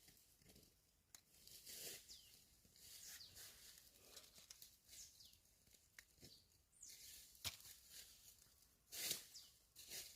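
Near silence, with faint short high chirps that fall in pitch, scattered rustling, a sharp click about seven and a half seconds in, and a brief louder rustle about nine seconds in.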